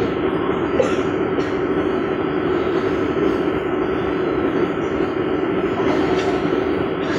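Steady rumbling noise with a held low hum and a fainter higher tone, unbroken throughout.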